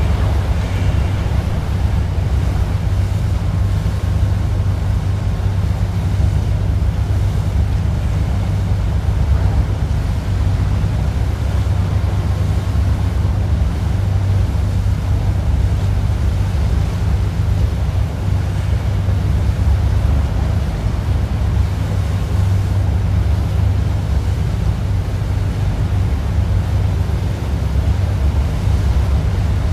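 A tour boat under way: a steady low engine drone, with water rushing past the hull and wind buffeting the microphone.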